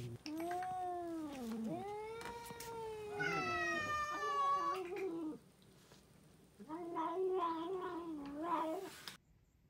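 Domestic cat yowling angrily, a drawn-out caterwaul wavering up and down in pitch. The yowl comes in two long stretches, with a pause of about a second and a half in the middle. It is an aggressive warning cry from an angry cat.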